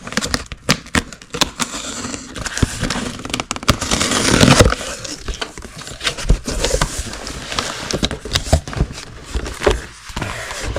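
Cardboard box and packing being opened and handled: crinkling, scraping and a string of light knocks, with a louder stretch of rustling about four seconds in.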